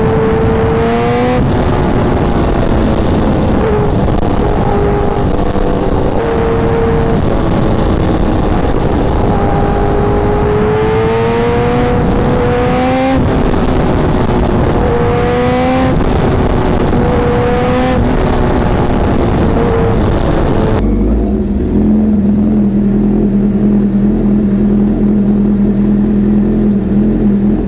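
Honda CBR1000RR Fireblade's inline-four engine at highway speed with heavy wind rush, its pitch climbing and then dropping back several times. About 21 seconds in it changes to the bike idling steadily, without the wind.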